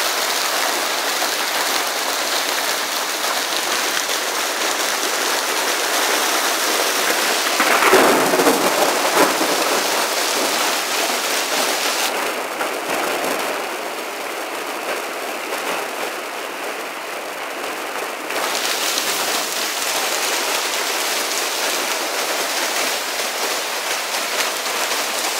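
Hailstones pelting down in a dense, steady hiss and clatter, with a louder surge about eight seconds in and a slightly quieter, duller stretch from about twelve to eighteen seconds.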